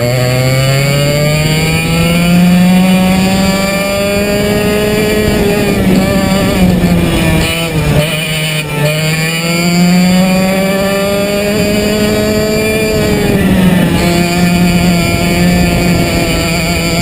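TAG 60 cadet kart's small two-stroke engine heard from on board at full throttle, its note climbing steadily along the straights. The pitch drops sharply twice, about halfway through and again near the end, as the driver lifts off for corners, then climbs again.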